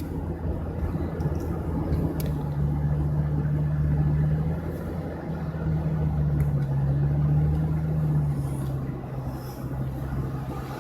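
Car driving, heard from inside the cabin: a steady low engine and tyre drone whose hum shifts a little in pitch with speed and drops lower near the end.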